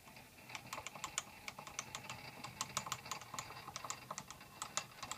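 Rapid, irregular light metal clicks and ticks from a metal lathe's tool post and its fittings being handled and adjusted.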